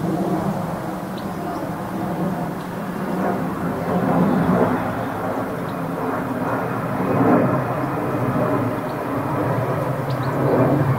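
Steady low rumble of distant engines in the city background, swelling slightly about four and seven seconds in.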